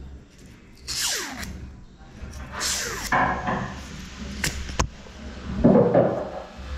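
Hands working on the armature of a Hilti TE 7C rotary hammer's motor: short scraping and rubbing noises at the commutator in a few bursts, with a falling squeak about a second in and two sharp clicks just before the loudest rub near the end.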